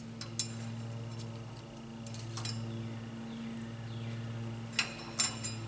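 A few sharp metallic clicks and clinks from steel brake hardware as the rear parking brake shoe springs are worked loose, over a steady low hum.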